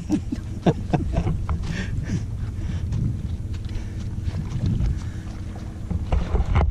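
Wind buffeting the microphone, a steady low rumble, with scattered short knocks and rustles.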